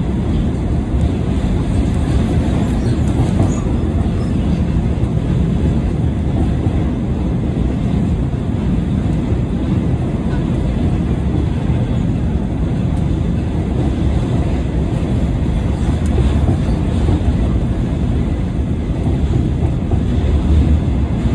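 Seoul Subway Line 4 train running steadily across a steel truss bridge, heard from inside the car: a loud, even low rumble of wheels on rails.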